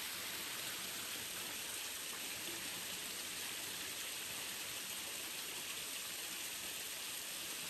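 Shallow river water running, a steady even hiss.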